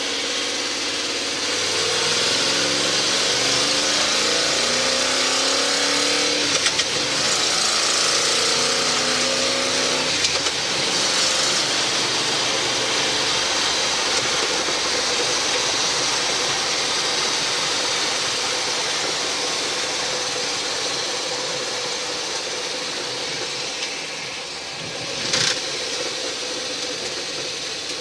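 Boss 302 V8 in a Ford F100 pickup heard from inside the cab while driving. The engine revs climb twice as it accelerates, then it runs steadily over road noise and eases off near the end, with one short sharp click about two seconds before the end.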